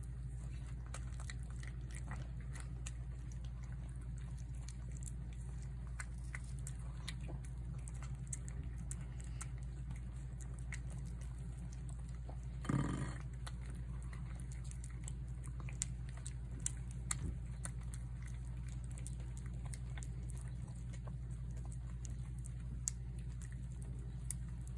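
A cat chewing and lapping wet cat food from a plate: a steady run of small wet clicks over a low steady hum. About halfway through there is one short, louder noise.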